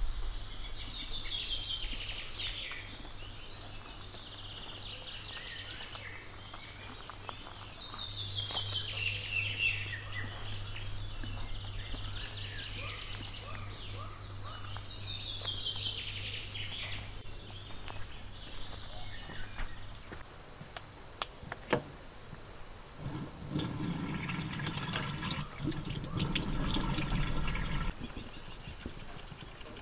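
Tropical forest dawn ambience: a steady high insect drone, with a bird's descending trilled call repeated three times, several seconds apart. Near the end a louder, noisier stretch of sound comes in.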